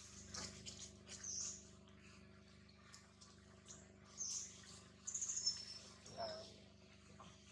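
Faint birds chirping in short high calls, with a quick trill about five seconds in and a brief lower call just after.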